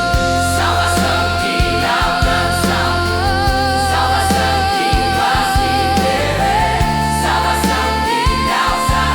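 Gospel worship music: long held, choir-like sung notes with vibrato, stepping up in pitch twice in the second half, over bass and drums.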